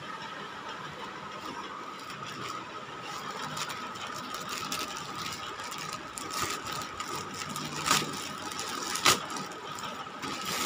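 Plastic courier mailer crinkling and rustling as it is torn open by hand, with a few sharper crackles about eight and nine seconds in as a cardboard box is pulled out of it.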